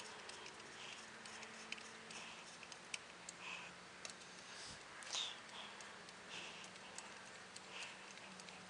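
Faint, scattered small metal clicks and short scrapes of a screwdriver tightening the trigger and bolt screws in a Colt Single Action Army revolver frame.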